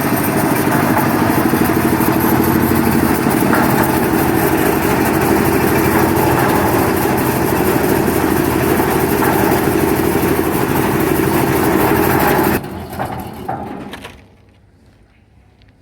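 Air-cooled single-cylinder-class 10 HP diesel engine of a concrete mixer running steadily and loudly, then cutting off about three-quarters of the way through, its sound dying away over a second or so.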